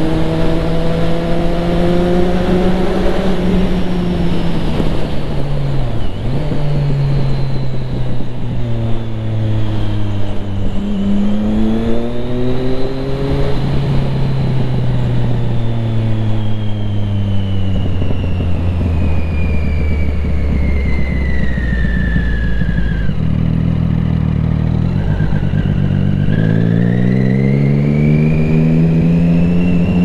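Triumph Street Triple 675R's inline three-cylinder engine through an Akrapovic exhaust, heard from the rider's seat with wind noise. The revs climb and drop through several gear changes, fall slowly for a long stretch as the bike slows, hold low for a few seconds, then climb again near the end as it accelerates.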